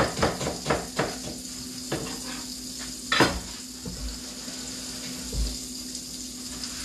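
Kitchen knife chopping an onion on a cutting board, quick strokes about four a second, then a couple of louder knocks, the loudest about three seconds in. A faint steady sizzle of melted margarine in a pot on the stove runs underneath.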